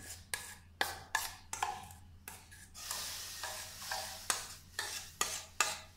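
A spoon clicking and scraping irregularly against a steel bowl as thick tamarind pulp is scooped out into a hot non-stick pan, with a brief sizzle about three seconds in as the pulp lands on the hot pan.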